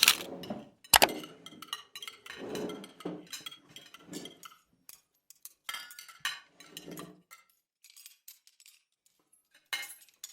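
Scattered light clinks, taps and rustles of small objects being handled, with a sharp tap about a second in and a quiet gap near the end.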